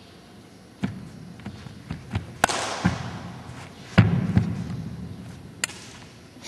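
A child's wushu footwork on a carpeted competition floor: feet landing and stamping in dull thuds, the loudest about four seconds in, with two sharp smacks, about three seconds apart, that ring on in the large hall.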